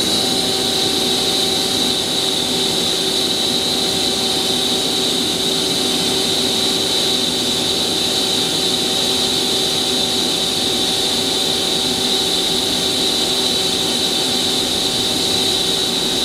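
Mazak Quick Turn 200MS CNC turning center running without cutting: a steady machine hum with a high whine and several held tones.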